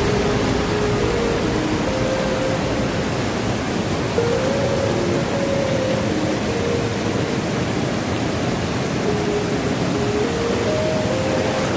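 Steady rush of a fast-flowing river running over rocks, with a faint melody of background music over it.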